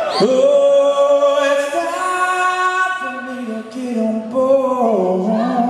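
A male lead vocal sings long held, bending notes live, with only light accompaniment underneath and little bass or drums.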